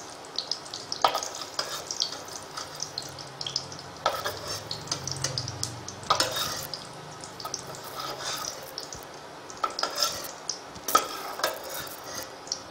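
Ghee sizzling in an aluminium kadai, with a metal spatula scraping and knocking against the pan every second or two as fried cashews and raisins are lifted out.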